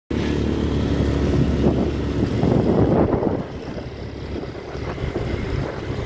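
Motorcycle engine running under way, a steady low drone, easing off about three and a half seconds in to a quieter engine with wind noise on the microphone.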